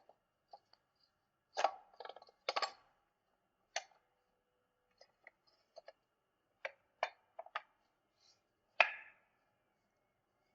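Tailgate lock parts being handled, plastic and metal clicking and clacking: a cluster of clicks about two seconds in, scattered single clicks after, and one sharper clack near the end.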